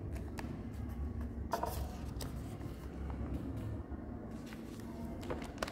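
Paper pages of a project file being handled and turned, with a rustle about a second and a half in and a few light clicks, over a steady low hum.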